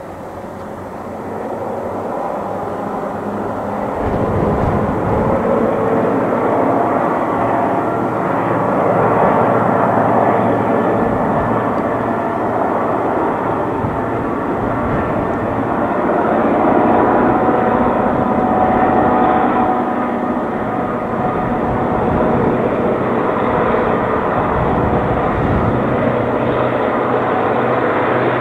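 Two EMD G26 diesel locomotives working at full throttle (notch 8) to haul a heavy freight train uphill: a steady, deep engine drone that grows louder over the first few seconds, then holds.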